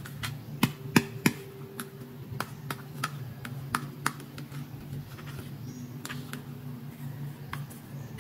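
Sharp clicks and taps of hard plastic as hands handle a small toy hair dryer, with a cluster of loud clicks about a second in and scattered clicks after.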